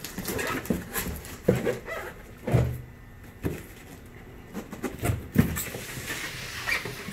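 Cardboard shipping boxes being handled and moved: about six dull thumps and knocks of cardboard, with flaps being folded shut.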